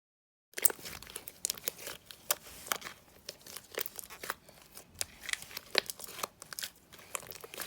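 Slime being squeezed and stretched close to the microphone, giving a dense, irregular run of sharp clicks, pops and crackles. It starts suddenly about half a second in and cuts off at the end.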